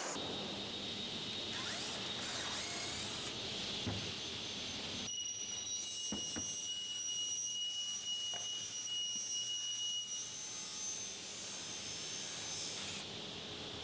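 Cordless power drill running steadily, its motor giving a high whine, while drilling or driving screws into wood.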